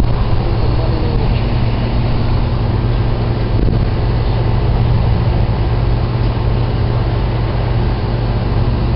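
Strong storm wind blowing across the phone's microphone, a steady low rumble throughout.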